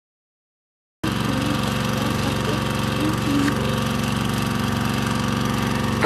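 Silence for about the first second, then the pile-driving rig's engine cuts in suddenly and runs steadily.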